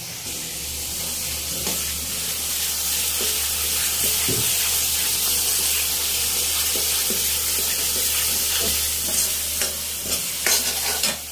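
Green peas and tomato-onion masala sizzling in a kadhai as they are stirred with a metal ladle: a steady frying hiss with scattered scrapes of the ladle against the pan, several in quick succession near the end.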